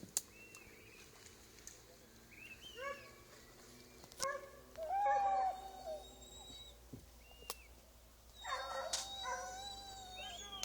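Hunting dogs whining and yelping in three bouts of high, wavering cries, the loudest in the middle, with a few sharp clicks between.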